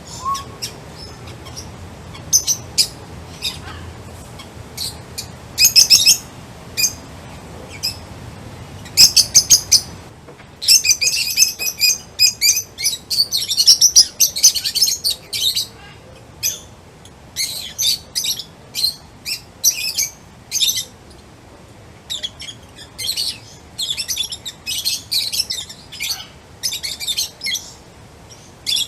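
Small songbirds chirping: short, high chirps, sparse at first, then quick flurries of many chirps from about ten seconds in.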